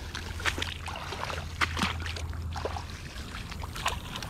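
Footsteps sloshing and splashing through shallow swamp water and mud, in irregular steps, over a low steady hum.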